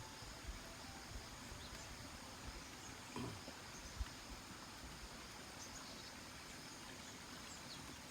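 Faint outdoor ambience: a quiet hiss with scattered short, high chirps and a few soft low knocks, one of them with a brief falling tone about three seconds in.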